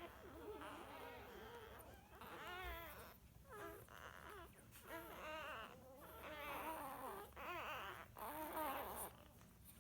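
Newborn Labrador puppies squeaking and whimpering: many overlapping high, wavering calls in short runs with brief gaps.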